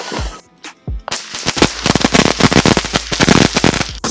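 Consumer fireworks going off: a couple of thumps, then from about a second in a fast, dense run of sharp cracks and pops, with music underneath.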